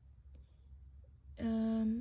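A woman's short hummed "mm" held on one pitch for about half a second near the end, over a faint low steady hum.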